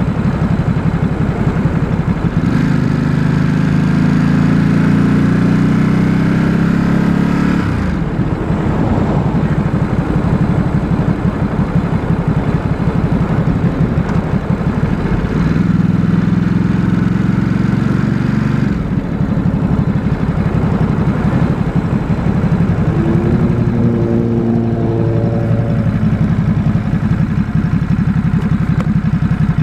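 Stock Ducati SuperSport S 937 cc L-twin engine under way, pulling up in pitch three times. The first two pulls end in a sudden drop, as at a gear change or throttle lift.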